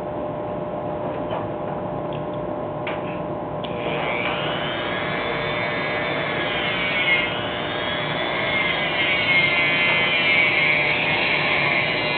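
Handheld Craftsman rotary tool with a small cutoff wheel, its motor whining at high speed while trimming a tiny pipe piece. The whine is steady at first. From about four seconds in it wavers up and down in pitch as the wheel is worked against the piece.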